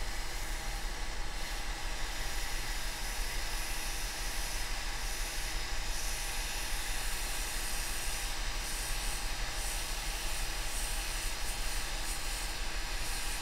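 Hot air rework station blowing a steady hiss while it reflows the solder under a replacement TriStar charging chip on an iPhone logic board.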